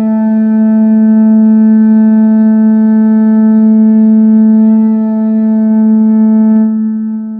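Deep war horn blowing one long, steady note rich in overtones, fading away near the end.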